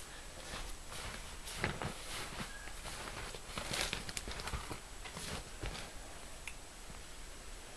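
Irregular footsteps and the crackle of dry twigs and branches being stepped on and pushed through, fairly faint.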